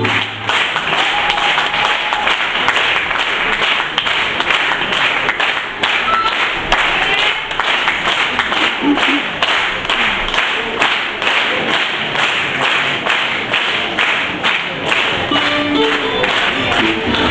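Audience applauding in a steady rhythm, about three claps a second. The folk band's music comes back in near the end.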